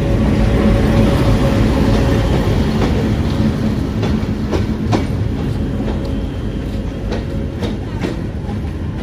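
Train running on the track: a steady low rumble with an even hum, and sharp clacks of the wheels over rail joints now and then, several of them around the middle.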